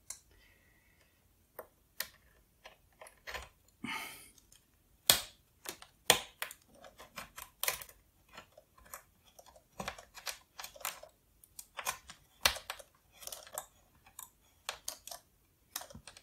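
Irregular small clicks and brief scrapes of plastic and metal as a screw is fitted into a PowerBook 180's plastic screen bezel, with a few sharper clicks scattered through.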